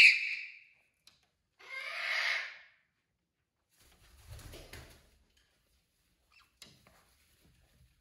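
A parrot gives a loud, harsh squawk right at the start, then a second, longer rasping call about two seconds in. A brief low rumble comes about four seconds in, and a couple of faint clicks follow.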